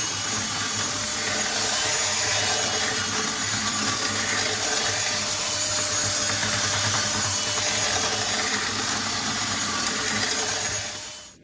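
Power drill spinning a rotary chimney-cleaning brush on flexible rods inside the flue to strip creosote, a steady whir and scrape that fades out just before the end.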